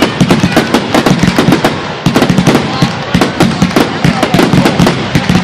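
Fireworks going off in rapid, continuous succession: a dense run of sharp bangs and crackles, several every second.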